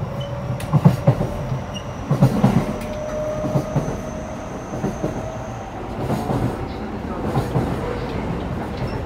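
Keio 9000 series commuter train running, heard from inside the car at the gangway between cars: a steady rumble with sharp knocks, and a steady whine that stops about six seconds in.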